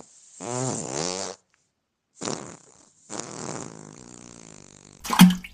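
Fart sound effect: several farts in a row. The first, about half a second in, lasts about a second and wavers in pitch. A short blip follows, then a long fart that trails off, and a short, loud burst near the end.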